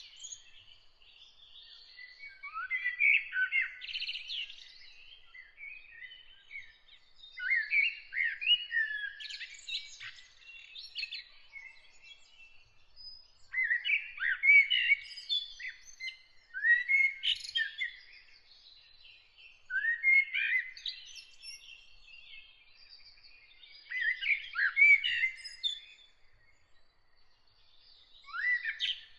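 Songbirds singing: bursts of quick chirping, twittering phrases with sharp falling notes, coming every few seconds, with quieter gaps between.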